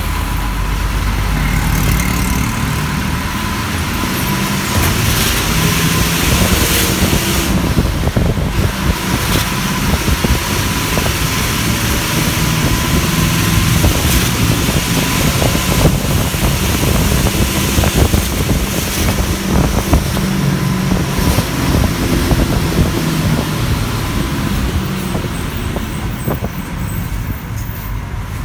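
City bus driving through traffic, heard from aboard: a steady low engine rumble with road and traffic noise, and a thin steady whine running through it.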